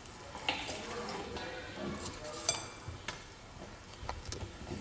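ALISKID hand-cranked plastic meat grinder being worked, giving a few scattered sharp clicks and knocks from its crank and housing.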